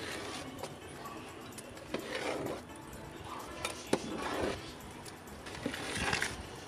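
A long flat metal ladle stirring a thick mass of cooked rice in a large aluminium pot, scraping through it, with several sharp knocks of metal against the pot.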